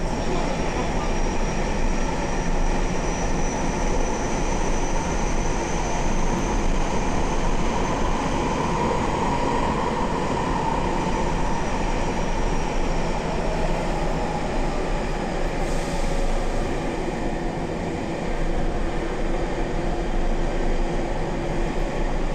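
Nagoya Municipal Subway 6050 series train running between stations, heard from inside the car: steady rumble of wheels and running noise, with the high whine of its Toyo Denki IGBT-VVVF inverter, which climbs slightly and fades out about ten seconds in.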